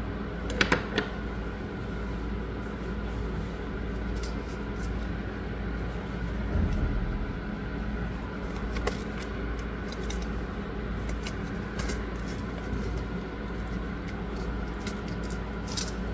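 Steady low hum with a few faint steady tones, broken by light clicks and taps at irregular intervals, a small cluster of them about a second in.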